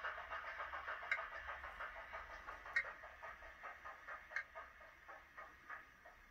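Recorded BR Class 25 Sulzer six-cylinder diesel engine sound playing through a tiny sugar-cube speaker in an N gauge model: the engine beat slows and fades as it runs down toward shutdown, with a sharper click about every second and a half.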